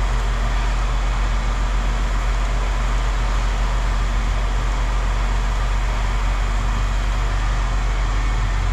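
An engine running steadily: a constant low hum with an even rumble over it, unchanging throughout.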